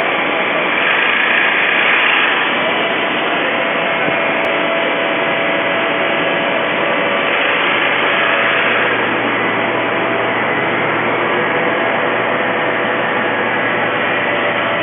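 Steady din of packing-line machinery: a belt conveyor and surrounding factory machines running continuously, with a few faint steady whining tones.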